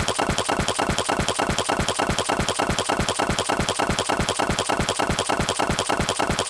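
A rapid, even series of knocking thumps, about nine a second, each with a sharp click on top and a deep falling thud beneath, running steadily without a break.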